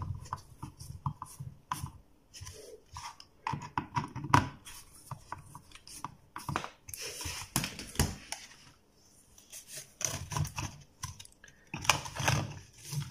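Screwdriver tightening screws in the plastic rear terminal housing of a steam iron, with irregular clicks, scrapes and light knocks of metal on plastic. Near the end, plastic parts are handled as the rear cover is fitted.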